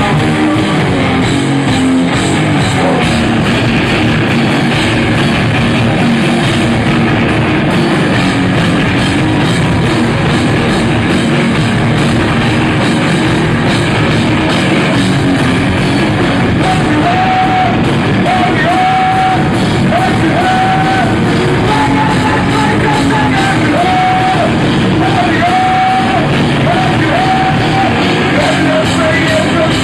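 A rock band playing loud live music with vocals, captured on an audience bootleg recording. About halfway through, a high held note begins repeating in short phrases.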